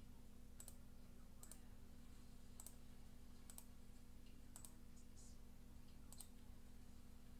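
Near silence: faint short clicks, irregular and about once a second, over a low steady hum.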